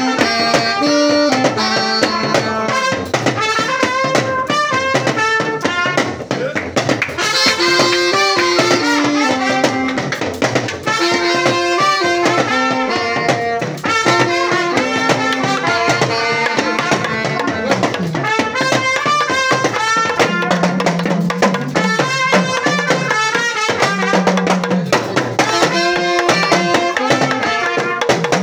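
Live band playing: saxophone and trumpet carry a melody over steady, busy percussion.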